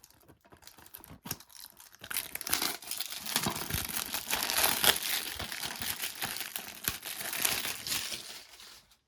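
Plastic shrink-wrap being torn and peeled off a new, sealed DVD case: a few small clicks and rustles, then about six seconds of continuous crinkling and tearing that dies away near the end.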